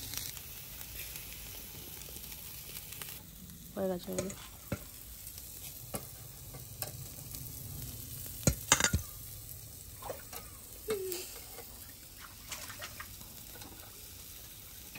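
Chicken sizzling over charcoal on a kettle barbecue grill, with metal tongs clinking against the grill grate and a steel bowl; the sharpest clinks come about eight and a half seconds in.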